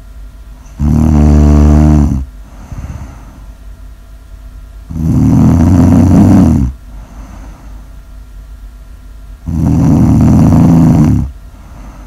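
A person snoring loudly in sleep: three long snores about four seconds apart, the first with a clear buzzing pitch, the other two rougher, with soft breathing between.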